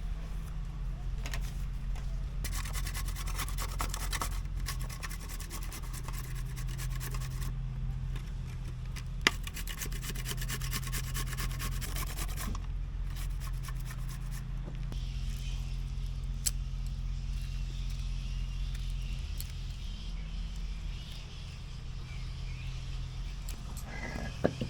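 Rapid repeated scraping strokes in two spells of several seconds each, over a steady low hum, with a few sharp clicks.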